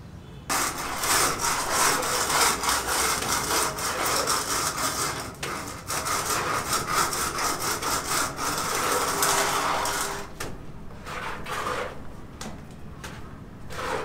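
A saw cutting wood by hand in a steady run of quick rasping strokes. It pauses briefly about five seconds in and stops about ten seconds in. A few light knocks follow.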